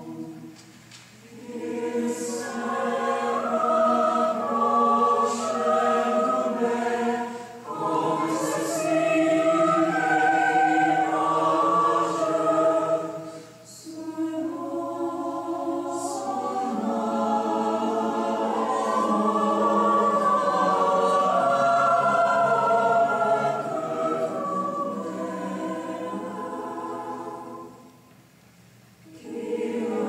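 A choir singing slow, sustained chords in long phrases separated by short breaks.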